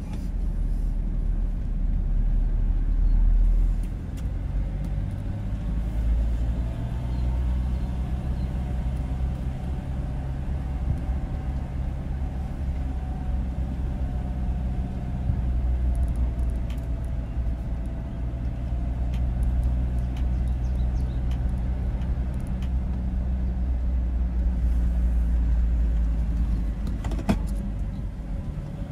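A car driving: steady engine and road rumble, with a faint wavering whine and a sharp click near the end.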